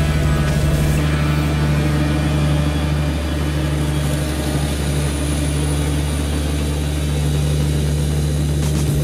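Vredo VT4546 self-propelled slurry injector's diesel engine running steadily, a low even drone.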